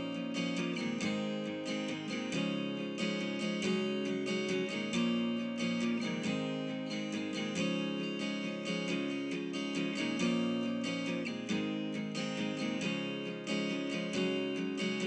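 Background music of acoustic guitar, plucked notes in a steady flowing run over changing chords.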